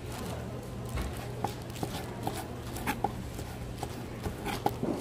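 Scattered light clicks and knocks of kitchen utensils at a food stall, a few ringing briefly, over a steady low hum.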